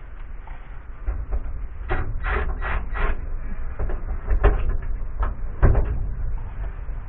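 Handling noise from electrical wire being pulled and laid out: a quick run of four scraping strokes about two seconds in, then a couple of sharp knocks, over a low rumble.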